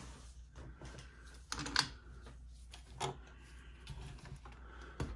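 Faint low room hum with a few light clicks and taps of handling: a pair about a second and a half in, one at about three seconds and one near the end.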